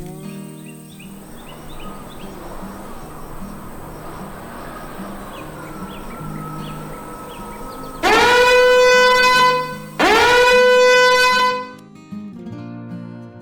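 Two long horn honks over cartoon background music, one about two-thirds of the way in and the next about two seconds later. Each swoops up in pitch at the start, then holds one steady note.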